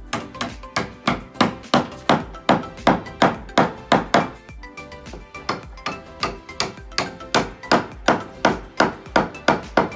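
Hammer striking wood, driving the joints of a wooden abacus frame together: a steady run of sharp knocks, about three a second, then a pause of about two seconds, then a second run. Background music plays underneath.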